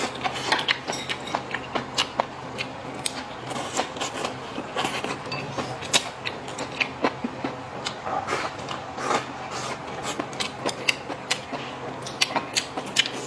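Close-up eating sounds: chewing and mouth smacking, with many irregular crisp clicks and crackles.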